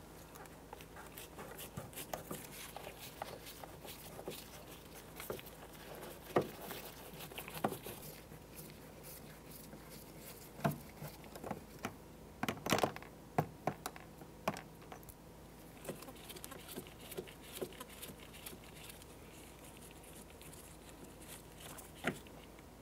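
Irregular light clicks and plastic rattles of a Phillips screwdriver working the retaining screws out of a car's plastic interior door trim, with a quick cluster of clicks about halfway through.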